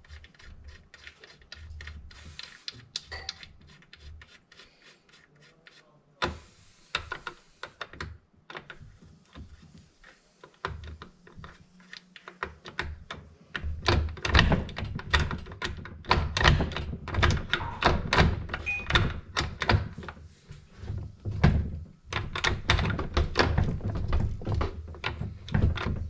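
Tofaş four-speed gearbox being shifted through its gears by hand on the bench, the gear lever and selector mechanism clunking and clicking as gears engage. Sparse quiet clicks at first, then from about halfway a dense run of metallic clunks, a test of whether the gears now engage after the selector's adjusting bolt has been set.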